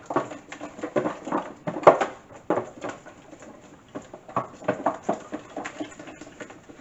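Whisk beating a thick flour-and-beer batter in a plastic container: irregular clacks and taps as the wires hit the container's sides, with wet slapping of the batter in between.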